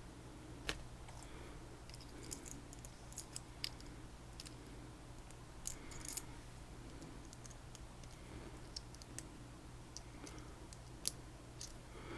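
Sparse, faint clicks and ticks of a Tesa TK100 dimple lock cylinder and its small metal parts being handled, over a low steady hum.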